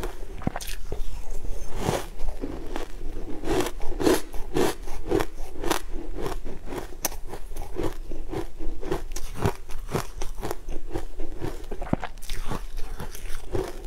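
Close-up crunching and chewing of mouthfuls of green-coloured crushed ice: a rapid, uneven run of crisp cracks, several a second.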